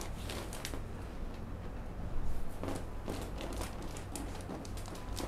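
Scattered soft rustling, shuffling and light knocks, a little louder about two seconds in, over a low steady hum.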